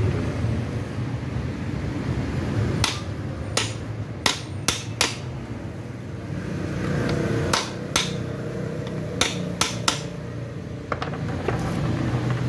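Hand hammer tapping at the metal centre hub of a car's electric radiator cooling fan: about ten sharp strikes, some single and some in quick pairs and threes, over a steady low hum.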